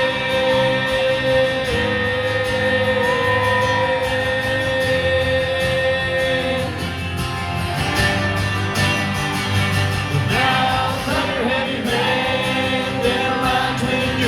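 Live country band playing with guitars; a voice holds one long note for about the first seven seconds, then the band plays on with shorter sung phrases.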